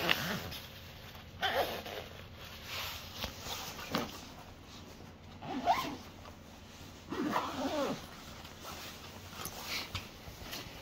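Zippers on an avalanche airbag backpack being pulled shut in about seven short strokes, a second or two apart.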